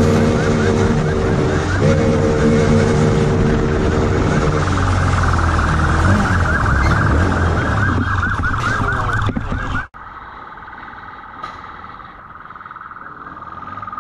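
Police motorcycle siren sounding in fast, repeated rising sweeps over engine and road noise. About ten seconds in the sound drops off abruptly and carries on much quieter, with the siren still faintly going.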